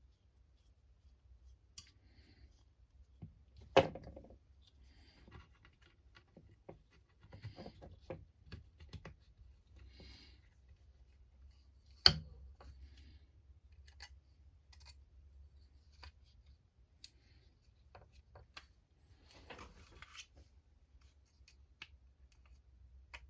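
Small plastic and metal parts of a Traxxas TRX-4 RC crawler chassis being handled and fitted by hand: scattered clicks, taps and light scraping, with two sharp knocks, one about four seconds in and one about twelve seconds in.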